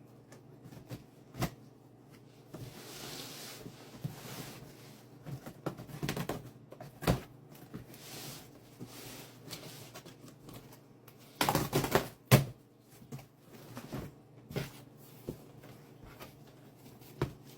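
A cardboard mail box being opened by hand: scattered clicks and knocks, with stretches of rustling and tearing. The loudest burst comes about two-thirds of the way through.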